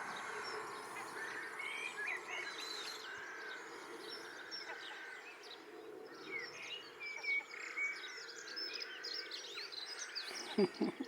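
Outdoor birdsong: many short, overlapping bird chirps and calls over a faint steady background noise, with a couple of sharp knocks near the end.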